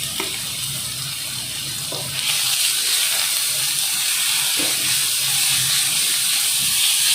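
Chopped vegetables sizzling in hot oil in a frying pan, a steady hiss that gets louder about two seconds in, with a few soft knocks.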